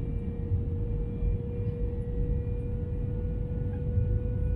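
Cabin noise inside an Airbus A321 on approach with flaps extended: a steady low rumble of engines and airflow, with a steady mid-pitched hum and fainter high tones over it.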